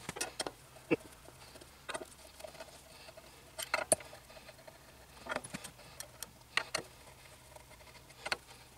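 Small hand screwdriver working the screws out of a resin printer vat's FEP-sheet frame: scattered light clicks and ticks of the tool on the screw heads and of screws being handled.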